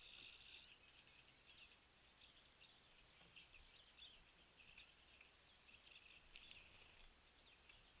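Faint, continuous twittering of small birds: many short high chips and notes overlapping without pause.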